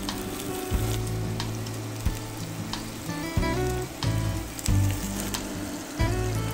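Minced-meat and cabbage patties frying in hot oil in a pan: a steady sizzle with scattered crackles, under background music.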